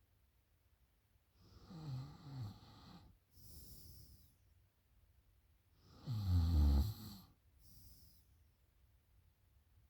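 A woman snoring in a drunken sleep: two rattling snores about four seconds apart, the second louder, each followed by a softer breath out.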